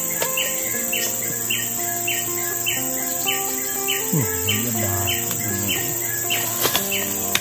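Forest insects buzzing in a steady high drone, with a short chirp repeating about twice a second, over background music. A single sharp knock near the end, a machete chopping into the rotten coconut palm trunk.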